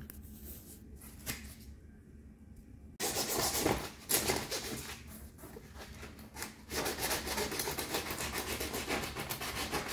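Sandpaper rubbed by hand over an inflatable dinghy's tube, scuffing the area inside a taped outline to prepare it for a glued patch. The scratching starts suddenly about three seconds in, eases off briefly in the middle, then runs on in quick back-and-forth strokes.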